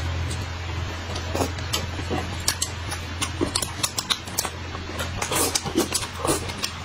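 Close-up eating sounds: noodles slurped and chewed, with short wet smacks and slurps that come thicker in the second half, over a steady low hum.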